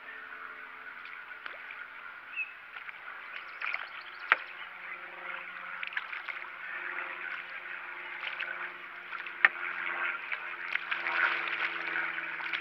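Water splashing and sloshing beside a small fishing boat as a large channel catfish is fought at the side and netted, growing louder near the end. A few sharp knocks on the boat, the two loudest about four and nine seconds in, over a faint steady low hum.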